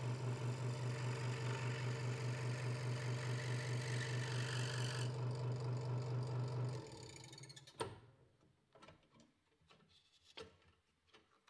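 Hegner Multicut 2S scroll saw running with a steady, pulsing hum while its blade cuts through a thin wooden board. The cutting hiss stops about five seconds in, and the saw winds down a couple of seconds later. A few light clicks follow as the top blade clamp is handled to release the blade.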